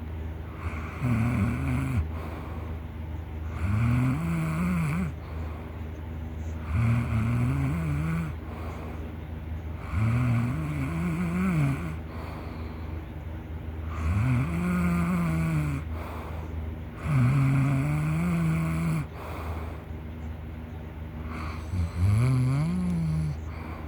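A person snoring loudly in a slow, regular rhythm: about seven snores, roughly three seconds apart. Each snore rises in pitch at its start and is held for a second or two.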